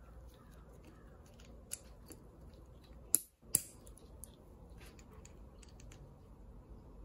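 Light metallic clicks and handling noise as synchronizer keys are set into the slots of a TR6060 transmission's synchro hub and slider, with two sharp clicks close together a little past the middle.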